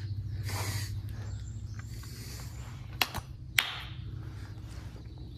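Two sharp hand claps about half a second apart, some three seconds in: the kashiwade claps of Shinto prayer at a shrine. A faint low hum runs underneath.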